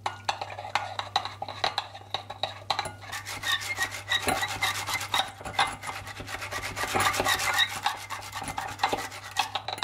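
Coiled wire whisk beating a thick tomato-paste and olive-oil sauce in a glass bowl: rapid, continuous scraping and clicking of the wire against the glass.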